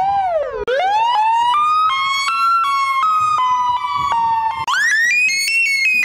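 Digitally altered recording of an outdoor warning siren. A wobbling wail cuts off under a second in, then the tone glides up and holds steady. About three-quarters of the way through it jumps to a higher pitch, a sped-up version of the same siren.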